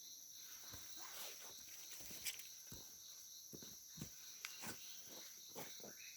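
Steady high-pitched chorus of forest insects, with faint scattered knocks and taps about every half second to a second.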